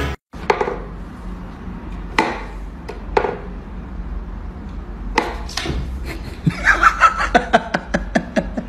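Wooden clacks and knocks from a cat's whack-a-mole toy box as its pop-up pegs are worked and the cat swats at them. A few single knocks, then a quick run of clacks, about four or five a second, over the last two seconds.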